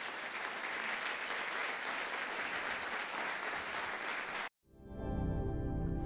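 Theatre audience applauding, ending abruptly about four and a half seconds in, after which calm outro music with sustained notes begins.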